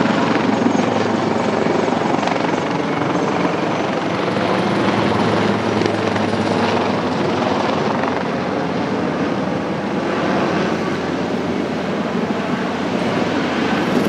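Military helicopter's turbine engines and rotor running, a loud steady noise that eases slightly and then swells again near the end.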